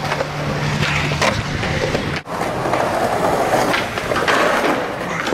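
Skateboard wheels rolling over concrete, with sharp clacks of the board popping and landing.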